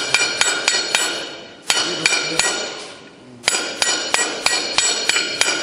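Rapid metal-on-metal hammering, about four or five sharp, ringing blows a second, as a part is driven into a gearbox. The blows thin out after about a second and a half, stop for about a second, then resume at the same fast pace.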